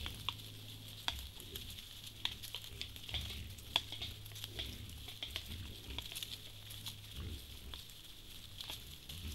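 White-lipped peccaries moving through dry leaf litter: scattered crackles, clicks and rustles from their hooves and snouts on the forest floor, over a steady low hum and a steady high hiss.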